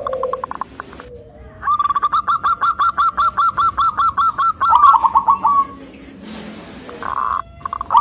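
Zebra dove (perkutut) song: a long run of short staccato coos, about six a second, that steps down lower near its end. A shorter run of coos comes at the start, and another begins at the end.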